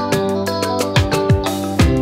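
Background music with a kick drum beat under held notes.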